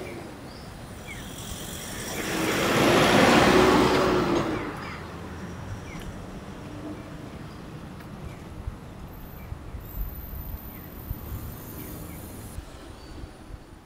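A vehicle passes by, swelling to its loudest about three to four seconds in and then fading away.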